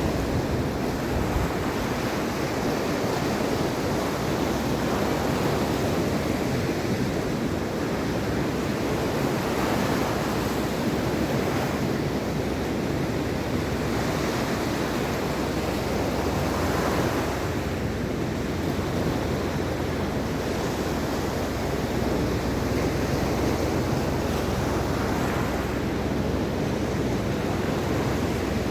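Mediterranean Sea waves breaking and washing on the shore in a steady surf, with gentle swells every few seconds, and some wind on the microphone.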